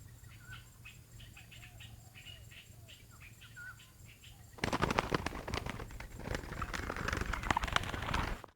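Faint high chirps of small birds, then, a little past halfway, a loud rough rustling clatter of wings flapping that lasts about four seconds and cuts off abruptly.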